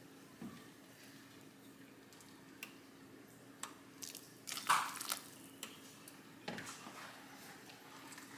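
Faint kitchen handling sounds: a few scattered soft clicks and knocks of utensils, the loudest about halfway through, over a low steady hum.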